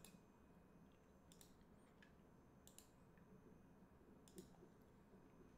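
Near silence with a few faint computer mouse clicks, two of them close together near the middle.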